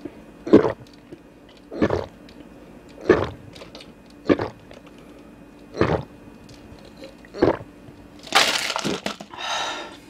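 A person gulping a fizzy Milkis and blue lemonade drink from a plastic cup of ice: six swallows, about one every second and a half. Near the end comes a longer, louder burst of noise as the ice-filled cup is lowered.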